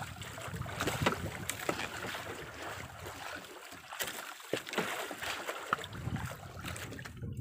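Sea water lapping and splashing against the hull of a drifting outrigger boat, with wind noise and a few light knocks scattered through.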